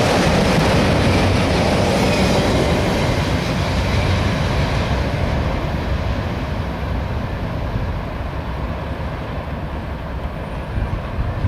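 Freight train of autorack cars rolling past, steel wheels clattering on the rails; about five seconds in the higher hiss drops away and the sound fades as the end of the train moves off.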